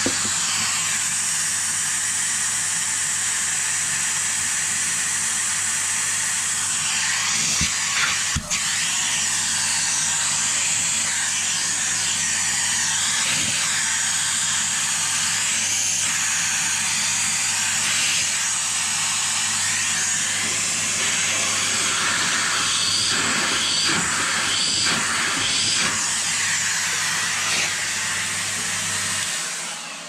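Canister vacuum cleaner running steadily, its hose nozzle sucking soap sludge out of a washing machine's drain pipe fitting; the suction sound changes a little as the nozzle moves, and the motor switches off just before the end.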